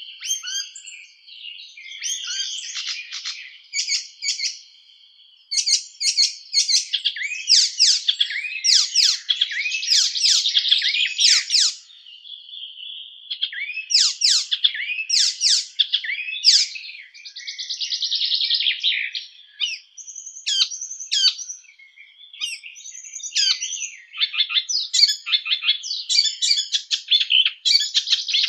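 A Hippolais warbler singing a fast, varied song of quick high notes and short whistles. It comes in phrases of a few seconds each, separated by brief pauses.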